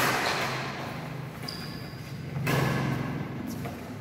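Badminton rally echoing in a large hall: a sharp racket hit on the shuttlecock right at the start, then shoe squeaks on the court and further shots about one and a half and two and a half seconds in.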